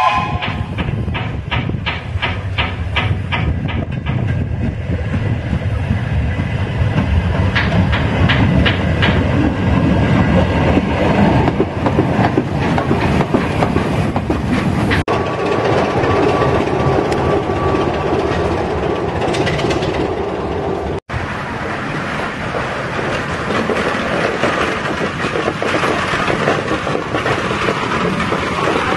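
Train running on the track, its wheels clicking over rail joints in a quick even rhythm at first, then a continuous rumble. It is broken by two abrupt cuts between recordings, with a steady high tone for a few seconds after the first cut.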